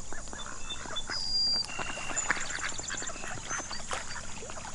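Ducks quacking: a run of short, repeated quacks from several birds.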